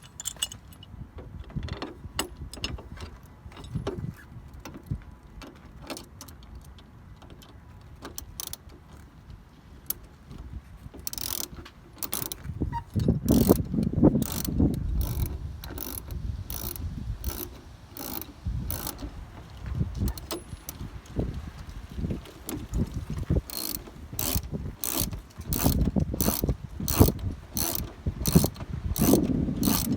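Hand ratchet with a 1/4 socket clicking as it drives in the fasteners of a steel spare-tire bracket. The clicks come in runs of quick strokes with short pauses: scattered at first, then steadier runs from about a third of the way in.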